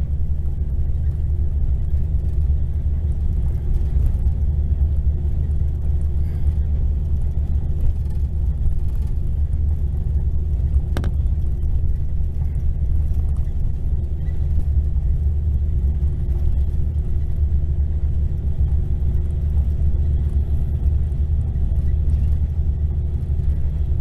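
Mercedes-Benz coach's diesel engine droning steadily at highway cruise, mixed with road rumble, heard from inside the cabin of an Irizar New Century 3.90 bus. One brief sharp click near the middle.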